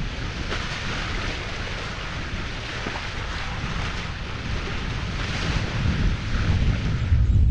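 Water rushing and splashing around the bow of a sailing yacht as it cuts through waves, the hiss swelling unevenly, with wind buffeting the microphone as a steady low rumble.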